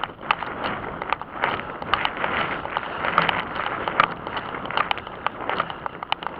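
A runner's footfalls on a paved path, about three steps a second, over a steady rustle of wind and clothing against the handheld microphone.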